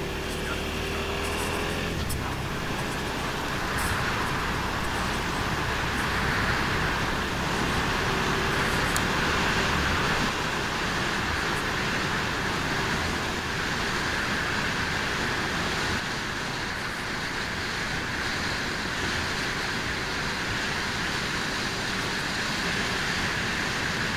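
Suzuki SV650 ridden at steady cruising speed: a steady rush of wind and road noise, with the engine running underneath.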